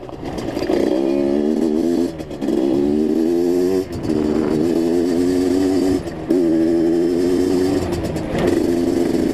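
Enduro dirt bike engine pulling hard under way, its note climbing and dropping off briefly at each gear change, about every two seconds, before holding steadier near the end.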